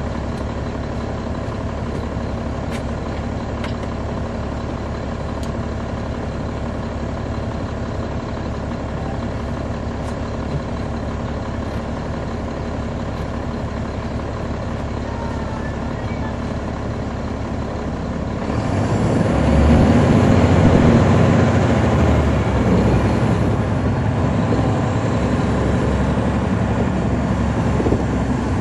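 The bus's Caterpillar C13 ACERT diesel engine runs steadily, heard from the rear seats. About two-thirds of the way through, the engine note swells as it revs up under load, then settles a little lower but stays louder.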